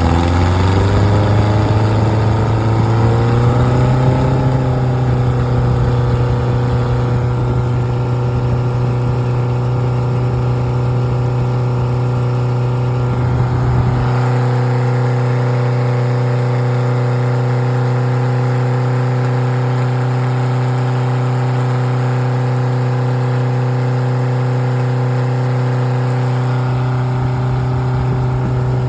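Rebuilt Triumph Spitfire 1296 four-cylinder engine speeding up over the first few seconds, then held running steadily at a fast speed. A low rumble beneath it drops away about halfway through.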